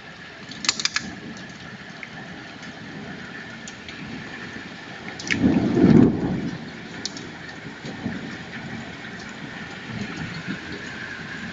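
Steady rain and hail in a summer thunderstorm, with sharp ticks of hailstones striking, a quick cluster of them about a second in. A short, loud clap of thunder comes about halfway through.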